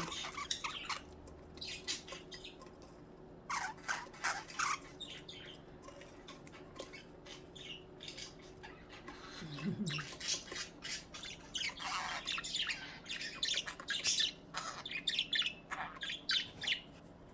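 Pet budgies chirping and squawking in short, quick calls, with a quieter lull midway before the chatter picks up again.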